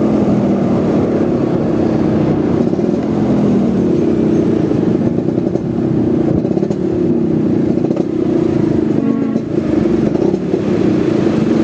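Vespa scooter engine running steadily while riding, its pitch drifting gently up and down with the throttle, over road and wind noise.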